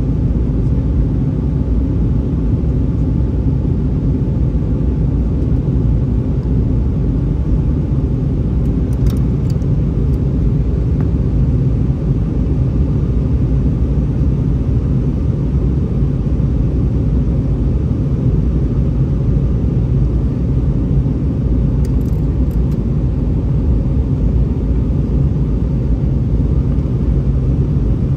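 Steady, low rumble of an Airbus A319-131 airliner, its IAE V2500 engines and airflow heard from inside the passenger cabin.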